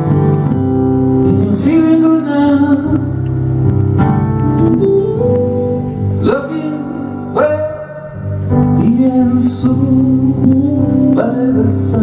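Live music: a man sings over a keyboard and an electric guitar.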